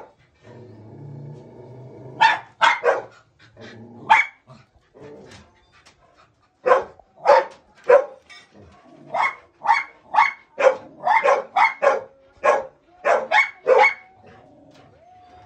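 Labrador retriever barking up at a cat: a low growl for the first two seconds, then about twenty loud, sharp barks in irregular bursts of two to four.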